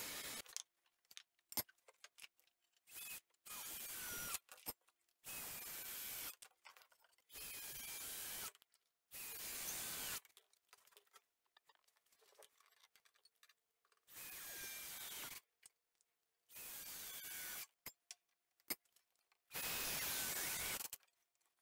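Ryobi cordless drill driving long screws into pine timber, in about seven short runs of one to two seconds each with pauses between. A brief louder noise sounds at the very start.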